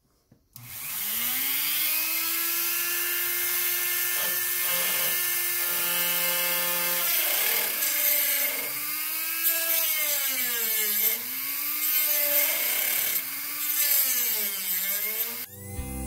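Grizzly rotary tool (Dremel-type) with a small cutoff grinder wheel spins up about a second in to a steady high whine. From about halfway it cuts texture lines into a walnut bowl: the pitch repeatedly dips under load and recovers as the wheel bites into the wood. It stops shortly before the end.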